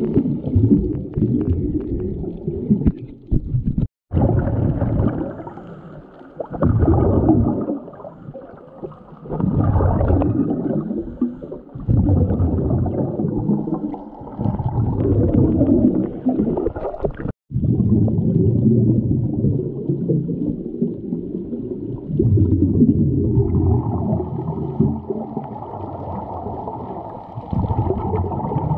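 Muffled, rumbling water noise picked up by a GoPro in its housing underwater while snorkeling, swelling and fading every few seconds, with two very short cutouts.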